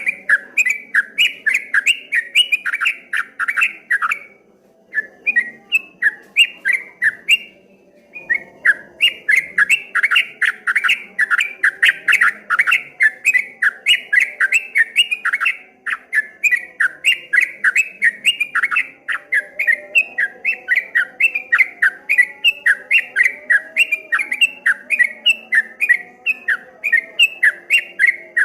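Trucuk kebo (a yellow-vented bulbul) singing its fast rolling "ropel" song: a long run of quick, bubbly, rippling notes, about three to four a second. It breaks off briefly twice in the first third.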